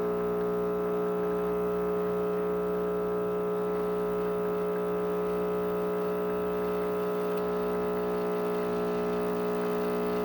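Rancilio Silvia espresso machine's vibratory pump running steadily, a buzzing hum, while it pulls an espresso shot.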